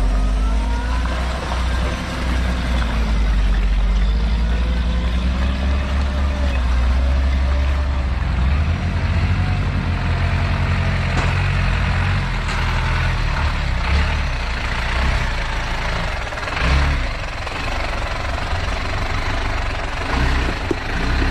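Off-road 4x4 vehicle's engine running, its revs rising and falling early on and then settling into a steady low rumble, with a few short knocks in the second half.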